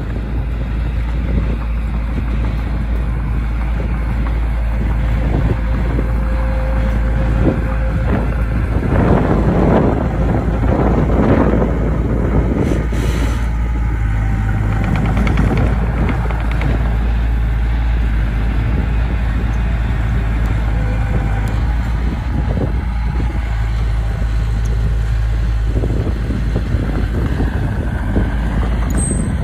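Heavy diesel earthmoving machinery running steadily under load, with a louder, rougher stretch about nine seconds in that lasts a few seconds.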